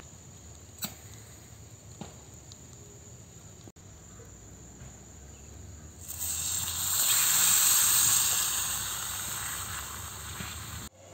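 Milk hitting a hot miniature steel pan over a small wood fire and sizzling, starting about six seconds in, swelling to a loud hiss and then slowly dying down. Before that there is only a faint steady hiss with a couple of light clicks.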